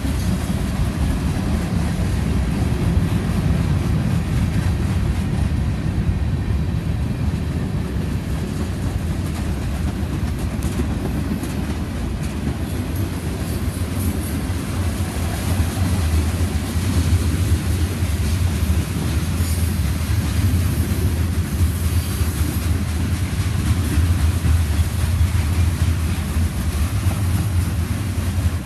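Freight cars of a CSX train, covered hoppers, tank cars and boxcars, rolling past close by: a loud, steady rumble and clatter of steel wheels on the rails.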